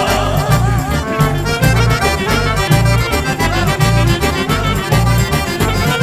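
Upbeat festive music with a steady beat, led by an accordion over a pounding bass line.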